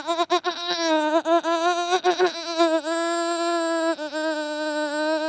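A person holding one long, high note made with the mouth, its pitch wobbling with a few short breaks over the first three seconds, then held steady.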